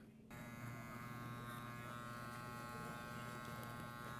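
Electric hair clippers buzzing steadily, starting suddenly just after the start.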